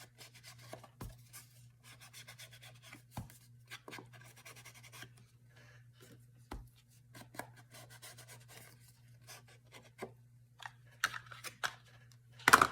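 Paper being handled at a craft table: light rustling, scratching and small clicks of journal pages and scraps being moved, with a louder rustle or knock near the end.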